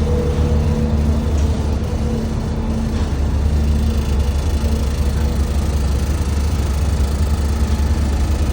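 Harley-Davidson cruiser motorcycle engine running at a steady speed, a constant low rumble with wind noise over it.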